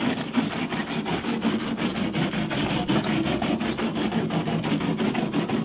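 Rasping abrasive rubbing of the bodywork in fast, even strokes, sanding the old paint to give the new paint a key.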